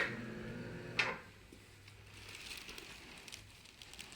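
Side-posture lower-back chiropractic adjustment: a sharp crack, then a second crack about a second later, with a low voiced groan from the patient between them.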